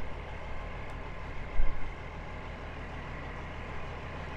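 Heavy diesel engine idling steadily, a low even hum, with one brief thump about a second and a half in.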